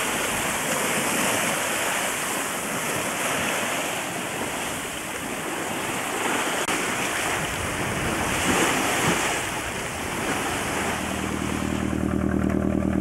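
Sea water rushing past the hull of a heavy wooden ketch under way. About eleven seconds in it gives way to a diesel engine running steadily with an even pulsing beat, the yacht's Caterpillar engine.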